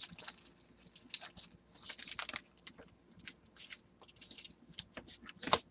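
Scattered light clicks and rustles from small objects being handled, short irregular taps with no steady rhythm.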